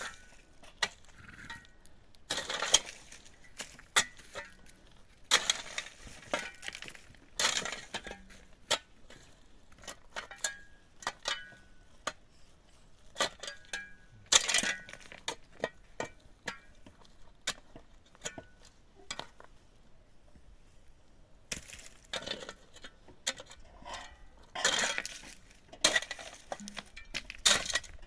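Hard objects clinking and knocking together at irregular intervals, with a few short scraping or grinding sounds in between.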